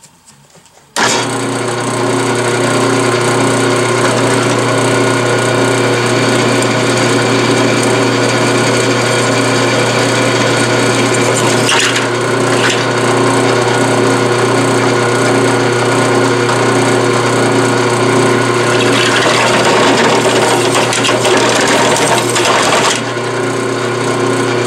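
Drill press switched on about a second in, its motor running steadily while a cheap Harbor Freight step bit (unibit) cuts a hole through the metal of a suspension lower control arm. The rasping cutting noise gets heavier in the last few seconds, then eases shortly before the end.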